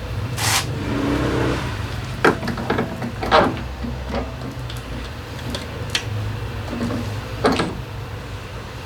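Metal knocks and clatters of tools and parts being handled during work on a scooter's drivetrain, over a steady low hum.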